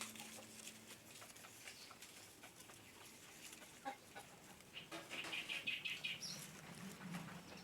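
Faint bird calling: a quick run of chirps about five seconds in, ending with a short rising note, over scattered soft clicks.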